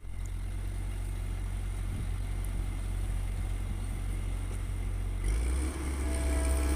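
Heavy diesel engine running steadily with a low hum. Its sound changes about five seconds in.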